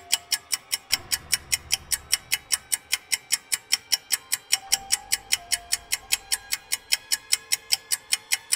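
Steady mechanical ticking, about four ticks a second, like a timer counting down, over soft background music.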